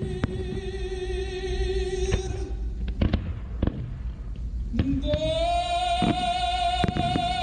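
Fireworks going off with a string of sharp bangs over singing: a long sung note with vibrato breaks off about two and a half seconds in, and a new, higher held note slides in about five seconds in.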